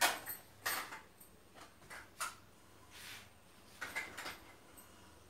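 Rustling and light knocks of makeup items being handled inside a quilted cloth bag: about half a dozen short scuffs spread over several seconds.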